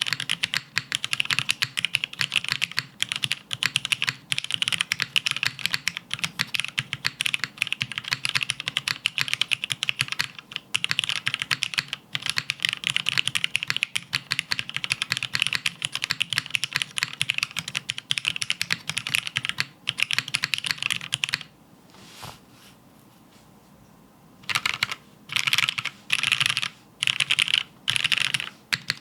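Typing on a Spyder TKL mechanical keyboard with Cherry MX Black linear switches on a top-mounted aluminium plate with no foam: fast, continuous keystrokes for about twenty seconds, then a pause. After that come several short bursts of rapid repeated key presses.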